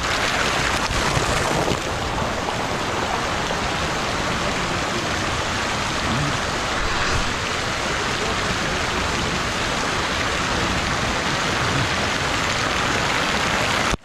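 Steady rush and splash of water in a fast-moving lazy river, lapping around a camera carried at the water's surface, with a water jet splashing down into the channel.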